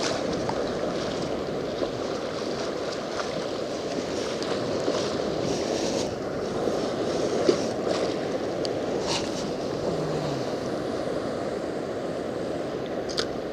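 Ocean surf washing steadily around the wader, with wind on the microphone and a few faint short clicks.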